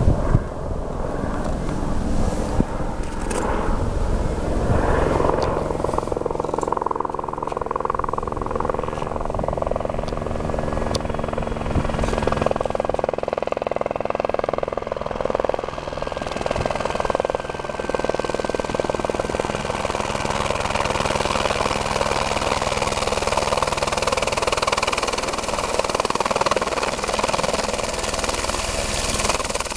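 A helicopter approaching and coming in to land, its rotor and engine running steadily. A rushing hiss builds over the second half as it draws near.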